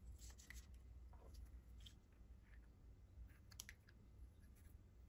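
Faint handling noise of PTFE thread-seal tape being wrapped onto a brass elbow fitting's threads: light crinkles and small clicks, with one sharper click about three and a half seconds in.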